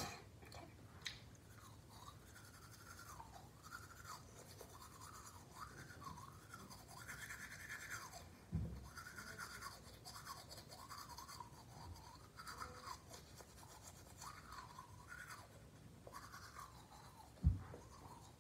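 Toothbrush scrubbing teeth: a faint, continuous scratchy brushing that wavers as the brush moves around the mouth. There are two low thumps, one about halfway through and a sharper one near the end.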